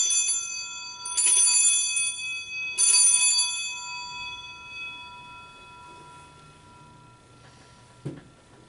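Altar bells (Sanctus bells) rung three times at the elevation of the chalice during the consecration, each peal a bright cluster of ringing tones that fades slowly. A soft knock comes near the end.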